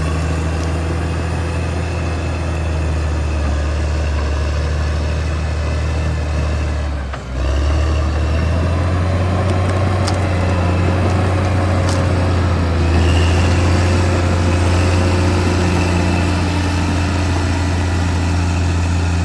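Caterpillar D6R XL bulldozer's diesel engine running steadily with a deep hum. The sound dips briefly about seven seconds in, then carries on, with a couple of faint clicks later.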